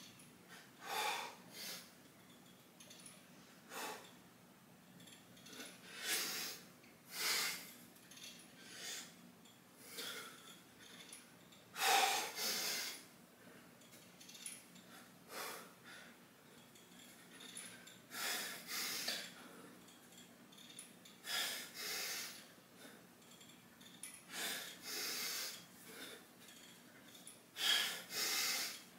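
A man breathing hard from the effort of pull-ups: short, forceful exhales, roughly one every one to two seconds.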